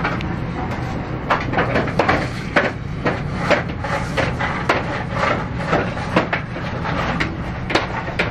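Workshop machinery running with a steady low hum, under irregular sharp metallic clicks and knocks, several a second at times.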